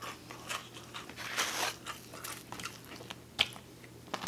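A person chewing a mouthful of food close to the microphone: irregular small clicks and wet mouth sounds, with one sharper click a little past three seconds in.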